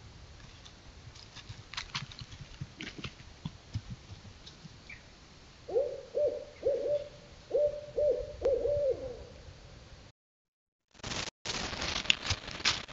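An owl hooting: a series of about seven hoots on one pitch, in a group of three and then a group of four. Near the end, after a brief gap, close crackling and rustling in dry leaves.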